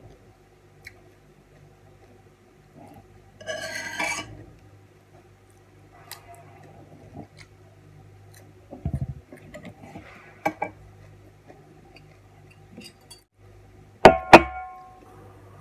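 Eating sounds at the table: scattered small clicks and a short noisy burst about four seconds in. Near the end come two sharp, briefly ringing clinks of a fork against the tray, the loudest sounds.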